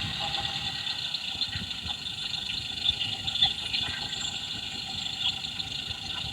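Idling car engine heard through an electronic stethoscope probe: a steady hum with faint, irregular light ticks.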